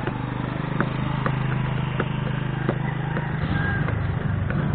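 An engine running steadily with a low hum that turns rougher about three and a half seconds in, with several sharp clicks or knocks over it.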